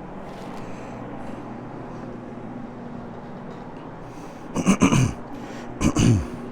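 Steady low hum of a rotary carpet-cleaning machine running. Over it come two loud, short throat-clearing coughs near the end, each falling in pitch.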